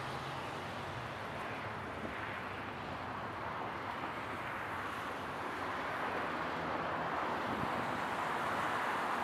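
Airbus A340-313 jet airliner with four CFM56 engines, heard from a distance as it touches down and rolls out along the runway: a steady rushing jet noise that grows a little louder near the end.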